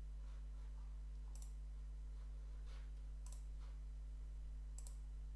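A few faint computer mouse clicks, spread a second or so apart, over a steady low electrical hum.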